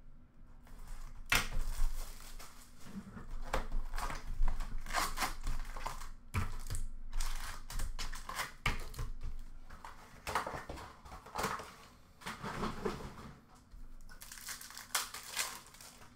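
A trading-card hobby box being unwrapped and opened. Plastic wrap crinkles and tears, cardboard scrapes, and foil packs rustle as they are handled, with irregular rustles and sharp clicks throughout.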